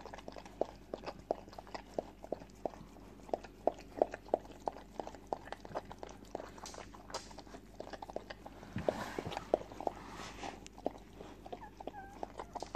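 Newborn puppies suckling at their mother: a run of small wet clicks and smacks, several a second, with a brief louder noise about nine seconds in.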